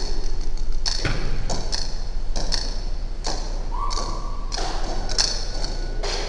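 Table tennis ball being struck by bats and bouncing on the table: a quick, irregular series of sharp clicks, about one every half second to a second.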